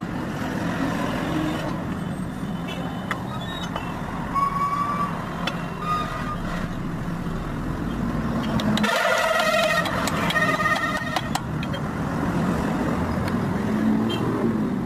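A vehicle engine runs steadily in a truck workshop, with scattered sharp metal taps as a universal-joint cross and bearing cups are worked into a truck propeller-shaft yoke. A few short pitched tones come through, the longest from about nine to eleven seconds in.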